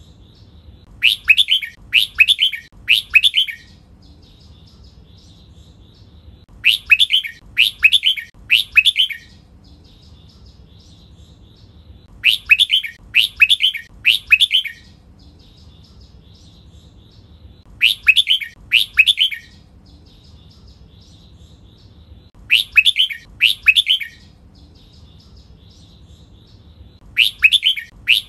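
Red-whiskered bulbul singing its 'double' song: loud phrases of two or three quick notes in a row, repeated about every five seconds, with softer chattering between them. This repeated 2–3 phrase pattern is the one bulbul keepers play to train their birds to sing.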